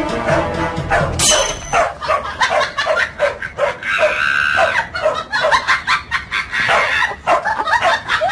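A dog barking in a run of short yips, a couple a second, with a longer higher call partway through.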